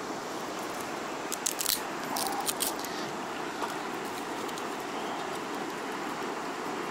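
Dry twigs clicking and clattering against a small metal Firebox folding stove as sticks are fed into it, a few sharp clicks about a second and a half in and again around two and a half seconds in, over a steady hiss.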